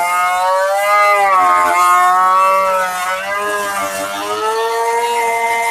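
Electric wood router running under load as it cuts a door panel profile, its motor whine sagging in pitch and recovering every second or two as the bit bites into the wood.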